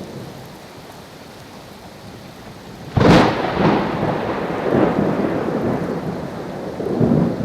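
Steady rain, then about three seconds in a sharp thunderclap that rolls on as rumbling thunder.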